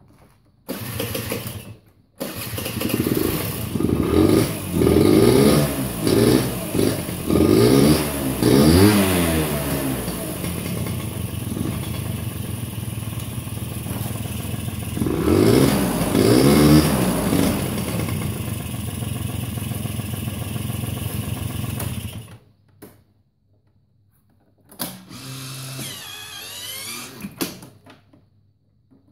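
Honda Tact AF24 scooter's small two-stroke engine starting after a brief first attempt, revved in a series of quick blips, settling to a steady run, revved again, then cut off suddenly about 22 seconds in. A shorter burst of engine sound follows near the end. This is the scooter being brought back to running after work on it.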